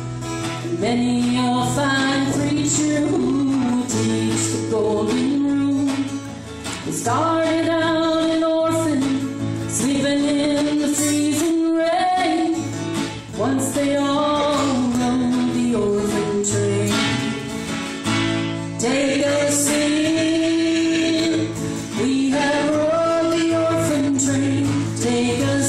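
A folk band playing live: guitar under a sung melody, with female and male voices.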